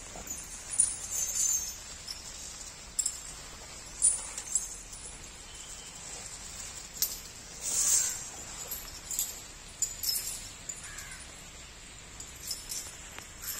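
Scattered short clinks and rustles from a chained Asian elephant feeding on palm fronds: leg chains clinking and leaves being handled, with crows cawing now and then.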